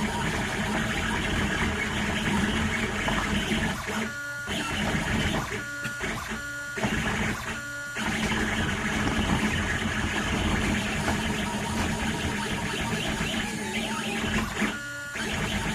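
Stepper motors of a DIY pen-plotter CNC whirring as the machine moves its axes, with several short stops where the movement pauses.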